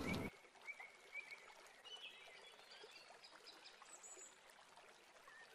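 Near silence, with a few faint high chirps like distant birds.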